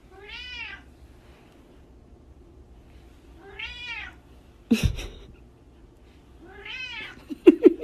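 A grey-and-white cat meowing three times, drawn-out meows that rise and fall, about three seconds apart: a cat begging to be fed. A thump about five seconds in and a few sharp knocks near the end are louder than the meows.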